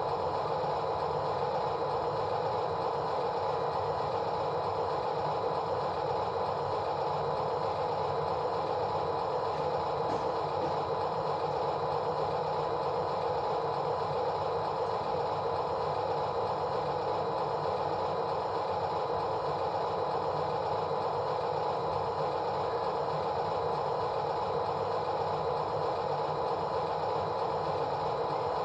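Steady, unchanging mechanical running sound with a constant hum.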